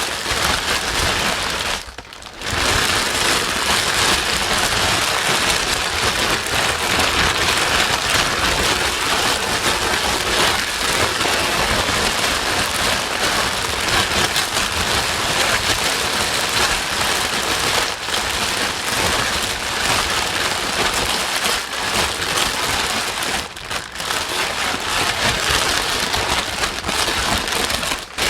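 Steady white noise with the grainy hiss of heavy rain, played loud and continuous as a sleep aid for a crying baby. It dips briefly about two seconds in, again near 23 seconds, and just before the end.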